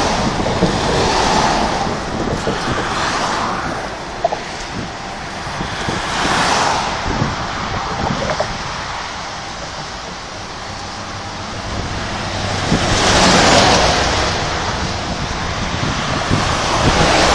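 Wind buffeting a phone's microphone, rising and falling in gusts, with the strongest gusts about six and thirteen seconds in.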